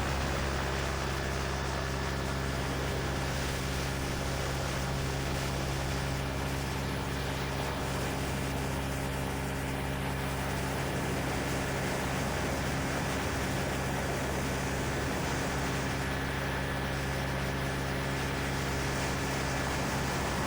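Quicksilver MXL II ultralight's engine running at a steady pitch, with a heavy rush of wind noise over it.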